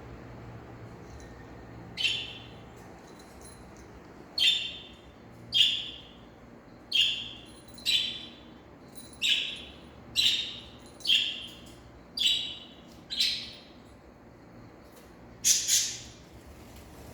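About eleven short, high-pitched animal calls, roughly one a second, each dropping slightly in pitch; the last, near the end, is a quick double call.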